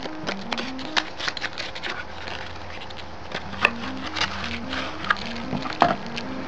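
Cardboard box and clear plastic knife packaging being handled, with repeated crackles and clicks as the package is slid out of the box. A simple melody of background music plays underneath.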